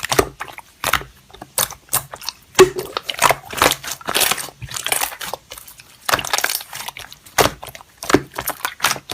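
Slime being squeezed and worked by hand, giving irregular crackles, pops and clicks.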